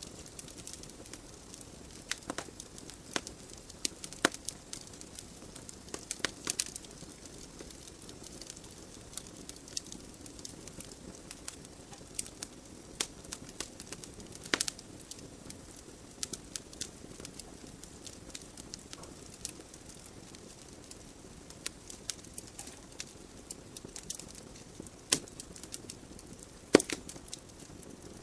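Wood logs burning in a fireplace: irregular sharp crackles and pops, a few louder ones, over a steady low hiss of the flames.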